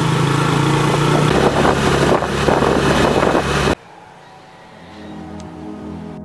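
Motorcycle tricycle engine running steadily with heavy wind and road noise from riding in the sidecar; it cuts off suddenly about two-thirds of the way in, and soft background music follows.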